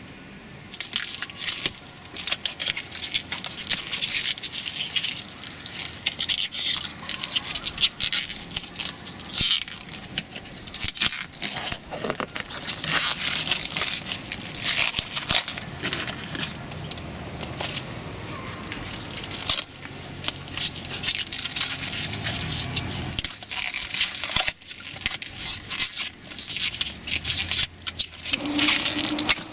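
Protective plastic film being peeled off a stainless steel sill protection plate, crackling and tearing in irregular pulls, with the crinkle of the stripped film being bunched in the hand.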